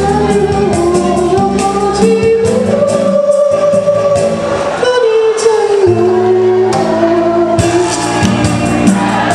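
A voice singing long held notes that slide up and down in pitch over a backing track with a steady beat.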